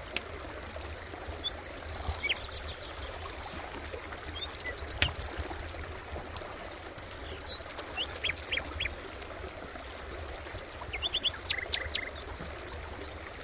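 Several birds chirping and calling in short, scattered whistled notes, with a quick buzzy trill about five seconds in and a cluster of rapid chirps near the end, over a low steady hum. A single sharp click about five seconds in is the loudest moment.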